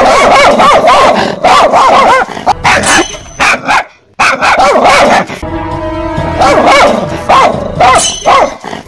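Fake dog barking: rapid, repeated barks and yelps that break off briefly about four seconds in and then resume. Background music comes in about halfway through under the barks.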